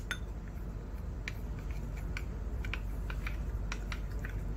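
Metal spoon stirring cornflour into milk in a ceramic bowl, its tip clicking lightly and irregularly against the bowl.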